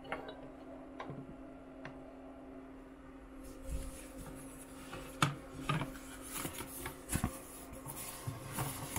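Foam packing sheets and a cardboard insert being handled and pulled out, rustling, with sharp clicks and knocks of hard plastic graded-card slabs; the handling gets busier after about three seconds. A steady low hum runs underneath.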